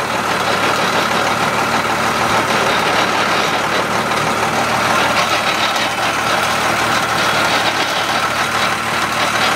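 Cummins 12-valve diesel drivetrain running with the NV4500 five-speed transmission and driveshaft turning, heard from underneath at the transmission: a steady running noise. The owner puts this noise and vibration down to the transmission, showing up in third and fourth gear at low rpm.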